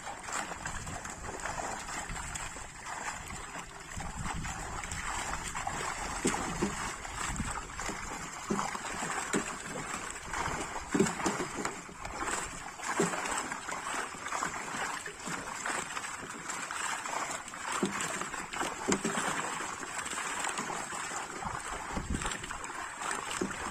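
Many fish thrashing and splashing at the surface of a crowded seine net in shallow water, a continuous crackling slosh of water, with hands reaching in among them.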